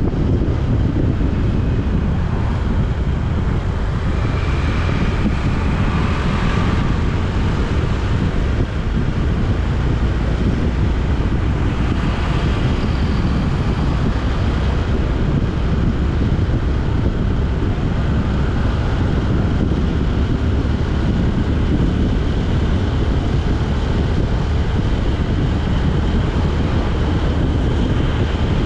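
Steady low rumble of travelling along a road in a moving vehicle, with wind buffeting the microphone. Faint higher engine tones come and go briefly a couple of times.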